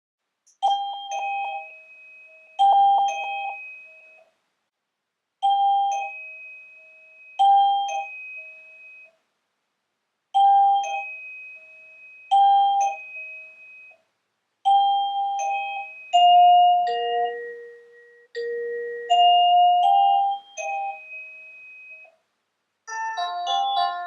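Electronic shop entry chime sounding a two-note ding-dong, a higher note falling to a lower one, repeated every two seconds or so with short pauses. It then plays a slower chime phrase of several notes, and near the end a quick tune of many notes starts.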